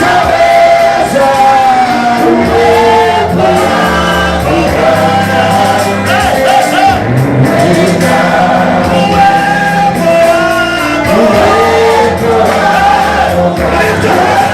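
Loud gospel worship music: voices singing over a steady instrumental backing.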